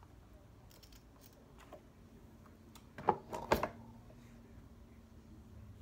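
Light clicks of sharpening gear being handled, then two sharper knocks a little past the middle, like a knife or diamond plate being set against a hard surface, over a faint steady hum.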